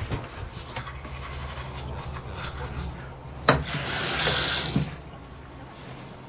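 A sharp click, then a sink faucet running for about a second before it stops. A steady low hum lies under it.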